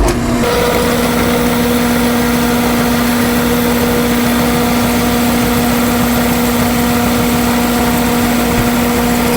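Drill press running steadily with a 1/4-inch bit drilling a hole in a 1/4-inch steel angle bracket, the motor giving a steady hum. It starts suddenly at the beginning.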